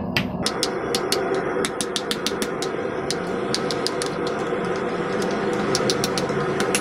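Hand hammer striking thin hot sheet steel against the anvil in quick light blows, about four to five a second, with a short lull about two thirds of the way through. A steady running hum sounds underneath the blows.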